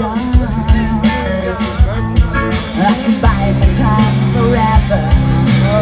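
Live rock band playing with drums, bass and electric guitar, while a man and a woman sing lead vocals.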